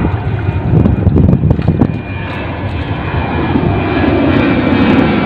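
Airplane flying overhead: a steady low engine rumble that grows louder through the second half.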